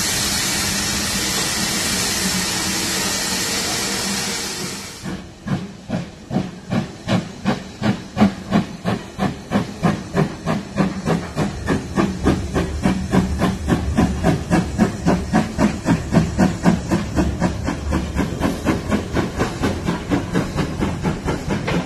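A steady, loud hiss of escaping steam, then, from about five seconds in, the exhaust beats of two steam locomotives pulling a train away, including LMS Ivatt Class 2 2-6-2 tank engine 41241. The beats start slow and get steadily faster as the train gathers speed.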